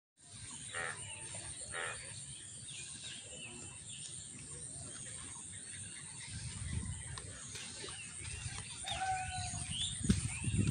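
Several birds calling and chirping, with two louder calls about one and two seconds in and a short held call near the end. A low rumble grows beneath them in the second half.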